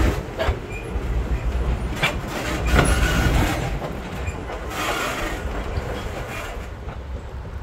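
Passenger car rolling slowly along the rails: a steady low rumble from the wheels with irregular clanks and knocks, heard from aboard the moving train.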